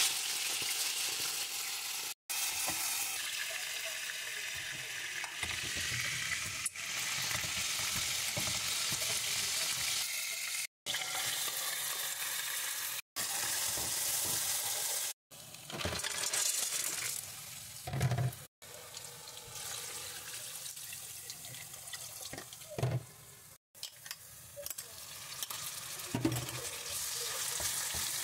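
Food frying in hot oil in a pan, sausages and then chopped onion, sizzling steadily while tongs and a wooden spoon stir and scrape in the pan. The sound drops out abruptly several times at cuts between short clips, and a few soft knocks come in the second half.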